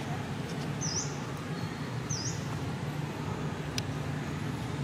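Steady low outdoor background hum, with two short high bird chirps about a second apart, each dipping and rising in pitch.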